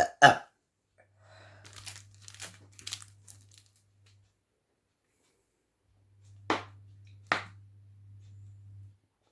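Plastic soda bottle crinkling and crackling as it is handled and squeezed. Two loud cracks come right at the start, then scattered crinkles, then two more sharp cracks about two-thirds of the way in, over a steady low hum.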